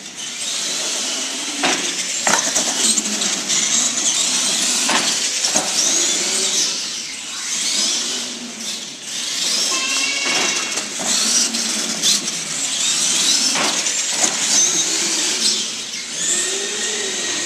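Radio-controlled monster trucks racing: their motors give a high whine that rises and falls in pitch as the throttle opens and closes. Several sharp knocks sound as trucks land or hit obstacles.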